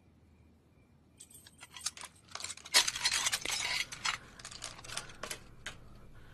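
A quick run of light metallic clinks and rattles that builds to its loudest about three seconds in, then thins to a few scattered clicks before stopping.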